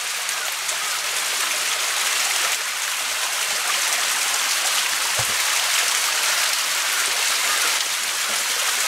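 Small natural waterfall spilling over a rock face, a steady splashing hiss of falling water.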